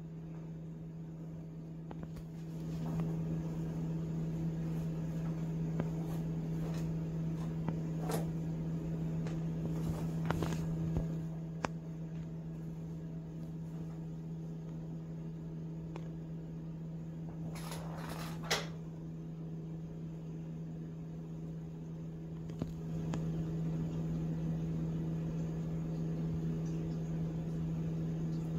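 Steady low appliance hum with scattered light clicks and knocks as a kitten bats a small toy across a tile floor. A louder double rattle comes about eighteen seconds in.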